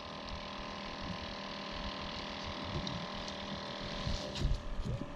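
A steady mechanical hum of a running motor, with a few light knocks and handling sounds.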